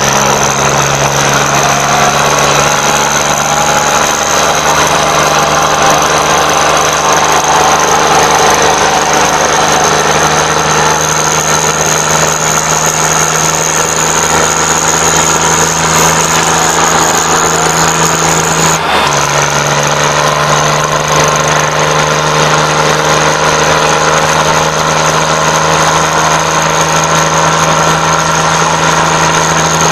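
Swaraj 855 tractor's diesel engine running flat out under heavy load, straining against an opposing tractor in a tug-of-war, with the rear tyres spinning in the dirt. The loud engine drone holds steady throughout, broken only by a momentary glitch about two-thirds of the way through.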